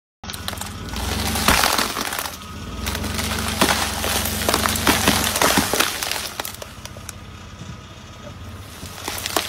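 A car rolling over and crushing brittle objects under its tyres: a run of sharp cracks and crunches over the car's low engine hum, thinning out after about six seconds.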